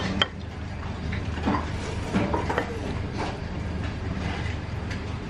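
Restaurant dining-room ambience: a steady low hum under faint background voices. A sharp clink comes just after the start, followed by a few light taps of a utensil on a ceramic bowl as thick jajang sauce is scraped out onto noodles.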